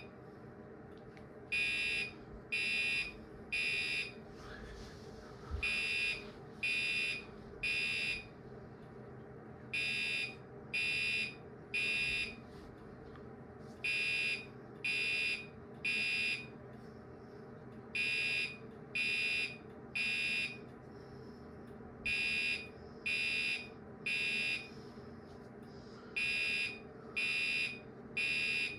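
Gentex Commander 3 fire-alarm horn strobe sounding its electronic horn in the temporal-three evacuation pattern: three short blasts, a pause, and again, about every four seconds. A low steady hum runs underneath.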